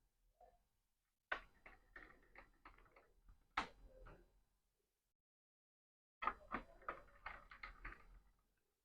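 Faint clicks and ticks of a small screwdriver tightening screws into a laptop's plastic case, in two short runs with a pause of about two seconds between them.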